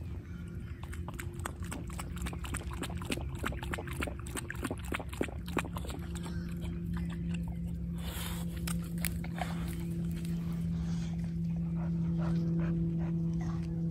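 A dog lapping water at the lake's edge: a quick run of wet clicks over the first several seconds. About halfway through, a steady low hum comes up and becomes the strongest sound.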